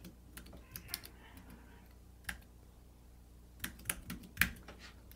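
Keystrokes on a computer keyboard: a handful of separate, unevenly spaced key presses as a password is typed in.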